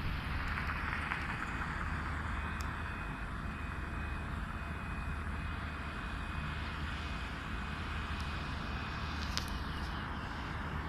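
Distant road traffic heard from high above: a steady, even rumble and hiss.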